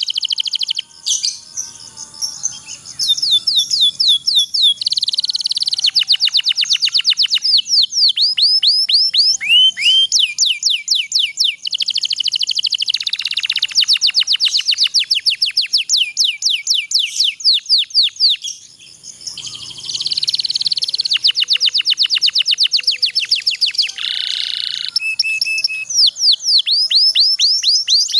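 Domestic canary singing long, rapid trills (rolls) of repeated sweeping high notes, with brief breaks about two seconds in and about two-thirds of the way through.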